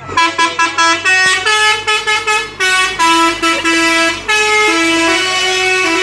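Multi-tone musical 'telolet' air horn playing a quick melody that steps between a few pitches, with short clipped notes at first and longer held notes from about halfway in.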